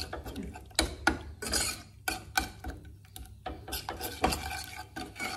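Metal spoon stirring and scraping against the inside of a stainless steel saucepan of coconut milk and curry paste: an irregular run of clinks and short scrapes, a few sharper knocks among them.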